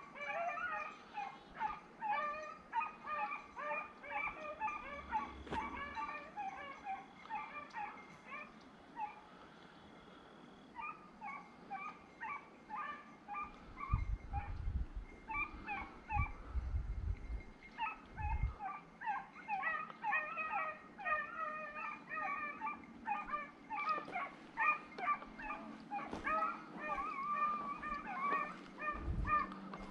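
A pack of hunting hounds baying and yipping on a rabbit's trail: many short, high calls overlapping one another. The calls thin out about ten seconds in and then build again, with a few low thumps in the middle.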